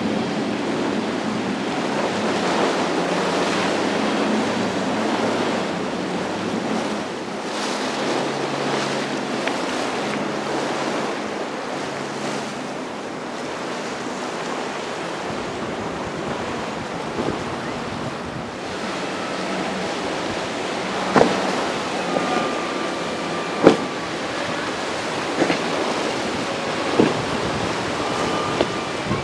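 Wind buffeting the microphone over the wash of surf and breaking waves, with the faint low drone of a boat engine at times. Several short, sharp knocks stand out in the last third.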